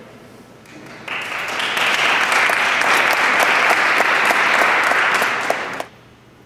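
Audience applause, a dense patter of many hands clapping. It starts about a second in and cuts off abruptly near the end.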